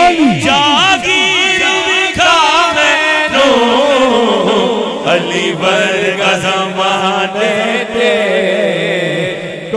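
A male singer performing a Punjabi manqabat in praise of Ali into a microphone, drawing out a long wavering, melismatic vocal line.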